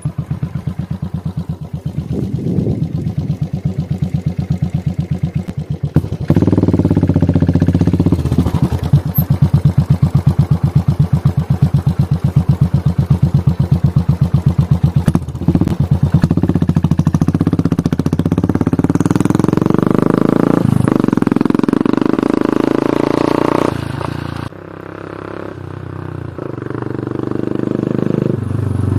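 Royal Enfield GT 535's single-cylinder engine running: a low idle with evenly spaced thumps, then louder with repeated throttle blips that rise and fall in pitch. Near the end the revs drop and then climb slowly.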